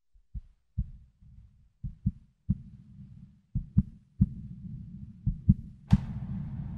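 Heartbeat sound effect: low thumps, mostly in pairs, about one beat a second over a low rumble, with a sharp hit near the end that rings on.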